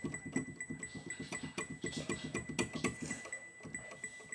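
Electronic annoying-sound effect playing: a rapid, fast low patter with a thin high beep pulsing about five times a second over it, getting softer after about three seconds.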